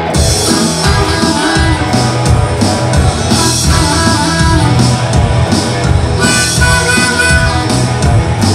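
Live rock band playing a bluesy number with drums, electric guitar and bass guitar, and a harmonica played into a vocal microphone over them.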